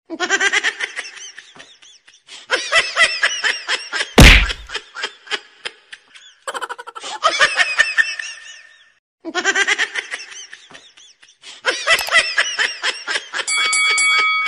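Laughter in repeated bursts, coming in several runs with short pauses between them. A single sharp whack sounds about four seconds in, and a brief steady tone sits under the laughter near the end.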